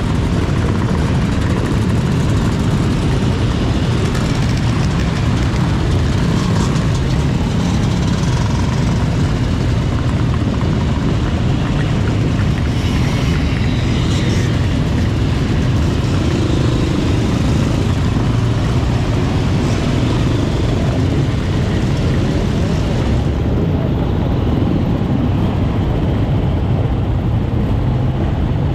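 Motorcycle engines running, a loud, steady rumble with a hiss over it.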